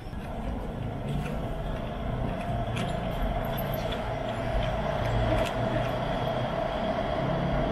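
A road vehicle's engine running close by over a low rumble, with a steady hum, growing steadily louder.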